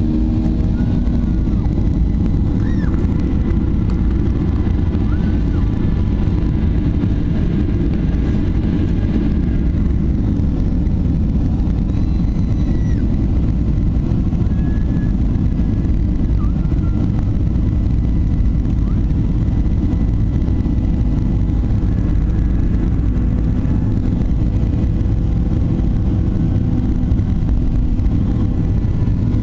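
Cabin noise inside a Boeing 737-800: the steady low rumble of its CFM56-7B jet engines and rushing air, heard from a window seat.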